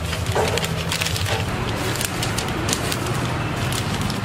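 Newspaper rustling and crinkling as it is pressed and tucked over the rim of a large aluminium biryani pot to seal it for dum cooking, over a steady low hum.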